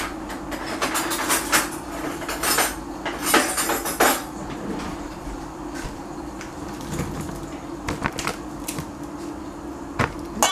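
Kitchen handling sounds: dishes and utensils clicking, knocking and clattering, busiest in the first four seconds, over a steady low hum. A sharp click comes near the end as a spoon reaches the stainless steel salad bowl.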